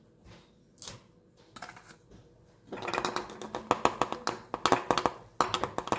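Dried lavender being spooned into small bottles with a little spoon: a few scattered light clicks at first, then from about halfway a dense run of rapid light clicks and rustling.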